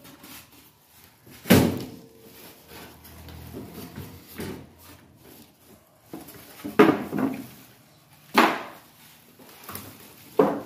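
Polystyrene packing blocks pulled off a new electric oven and set down, with four loud knocks and rustles, and plastic wrap crinkling in between.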